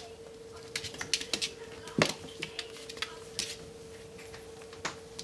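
Irregular light clicks and taps of a Bengal kitten playing with a small ball on a hard vinyl floor: claws skittering and the ball knocking, with one louder knock about two seconds in. A faint steady hum runs underneath.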